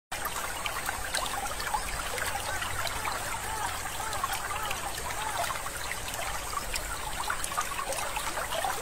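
Water trickling and flowing steadily, with many small bubbling, dripping plinks.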